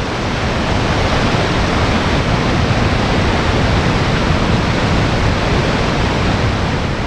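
Waterfall: the loud, steady rush of falling water.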